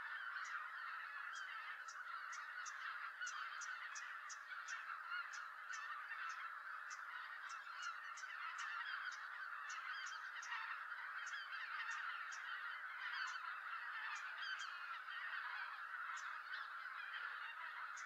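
A large flock of greater white-fronted geese calling continuously, many voices overlapping in a busy honking chorus as they gather at their roost.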